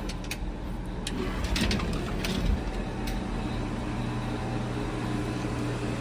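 Outdoor heat pump units running in heat mode with iced-up coils: a steady mechanical hum of compressor and fan with a low, even drone. A few sharp clicks or crunches come in the first two seconds or so.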